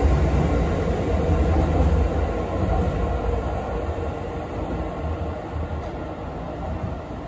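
Abukuma Express 8100 series thyristor phase-controlled AC electric train pulling away from the platform. Its low running rumble fades steadily as it draws off into the distance.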